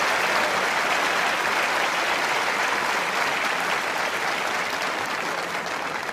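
Tennis crowd applauding after a point, the applause slowly dying down toward the end.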